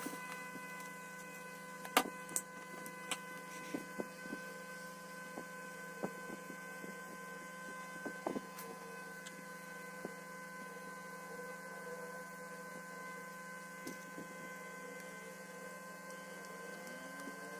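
Steady electrical hum made of several even tones, with scattered light clicks and taps, the sharpest about two seconds in.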